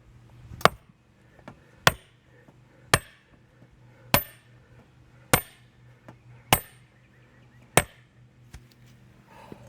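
A 5-pound sledgehammer striking a duckbill tool wedged into a padlock's shackle: seven sharp metal-on-metal blows about every 1.2 s, each with a brief high ring, plus a few lighter taps between them. The blows drive the duckbill in to force the shackle open.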